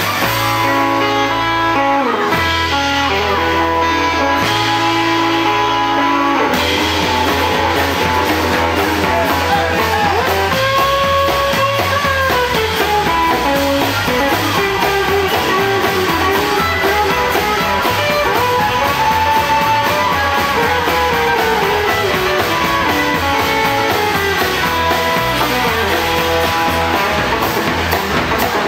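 Live rockabilly band playing an instrumental break: electric guitar over acoustic rhythm guitar, slapped upright double bass and drums. There are a few held chords with short stops in the first several seconds, then the electric guitar plays a lead with bending notes.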